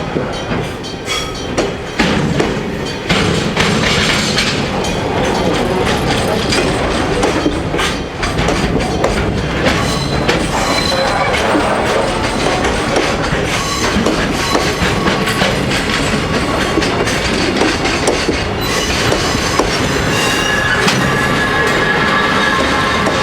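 Freight train wagons rolling past at close range, their wheels clicking over rail joints in a continuous clatter. Near the end, high thin wheel squeal sounds over the rumble.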